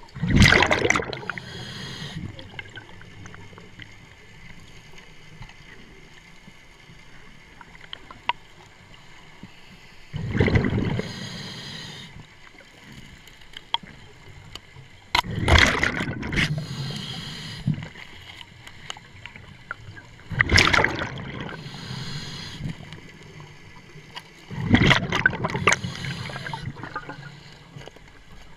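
Scuba regulator breathing underwater, heard through the camera housing: five loud gurgling rushes of exhaled air bubbles a few seconds apart, each fading out after a second or two, with quieter bubbling in between.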